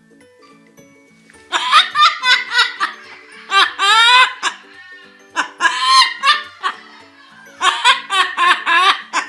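High-pitched laughter in runs of quick, short "ha" syllables, about three or four a second, starting about a second and a half in and coming in three bouts.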